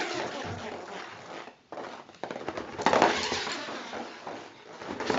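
Tiny beads rattling and buzzing around inside an inflated rubber balloon as it is shaken, a foley trick for a cartoon dizziness buzz. The rattle breaks off briefly about a second and a half in, then comes back louder.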